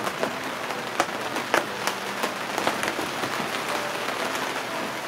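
Rain falling on a sailboat's cockpit enclosure: a steady hiss with frequent sharp hits of single drops.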